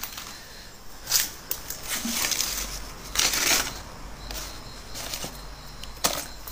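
A hand rummaging through old papers and debris in a drawer: dry rustling and scraping in several short bursts, the loudest about three seconds in.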